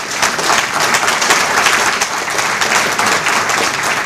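Audience applause: many people clapping together at once, a dense, even patter from a roomful of listeners.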